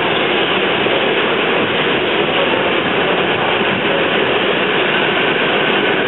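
R44 subway car running at speed through a tunnel, heard from inside the car: a loud, steady rumble of wheels on rail and running gear.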